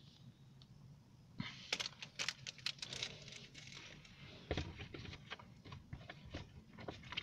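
Faint, irregular rustling and clicking of plastic packaging and small items being handled, starting about a second and a half in.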